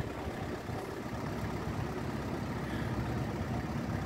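Tour riverboat's engine running, a steady low rumble.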